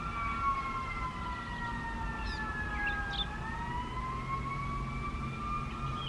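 Sentry 3V8-H outdoor warning siren sounding a fire call. It holds a steady two-tone note, and one tone sags in pitch over about three seconds, then climbs back.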